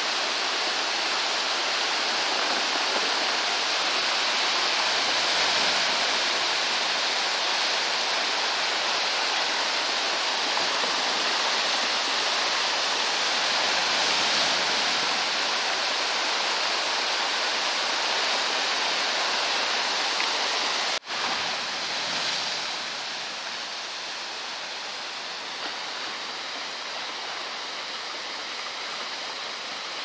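Steady rush of white water from a brook cascading down rock slabs, with surf churning against the boulders at the shore. It cuts out sharply for an instant about two-thirds of the way through and comes back a little quieter.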